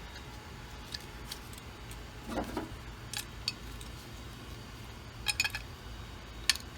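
Light metallic clicks and clinks of small Holley carburetor parts being worked by hand while a stuck float-valve assembly is freed. There is a short scraping rub about two and a half seconds in, a quick cluster of clicks a little past five seconds, and a sharp click near the end.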